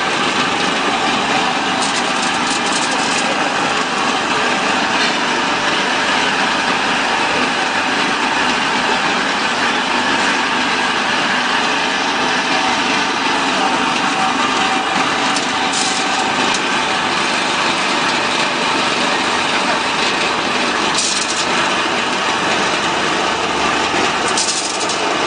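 Small electric-motor-driven animal feed pellet machine running steadily while whole corn kernels are fed into it, a continuous mechanical whine and rumble, with a few short rattles.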